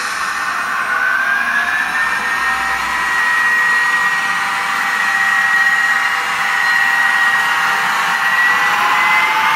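N-scale model locomotive's small electric motor whining steadily as it hauls a train of coaches, with the hiss of wheels rolling on the rails. The whine rises slightly in pitch about a second in and again near the end.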